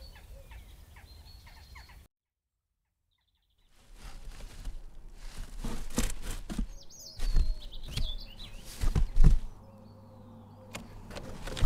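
Garden birds chirping, then a short gap of silence. After it comes a run of sharp thumps and scuffs against a cardboard box, with a few more bird chirps, before it settles down near the end.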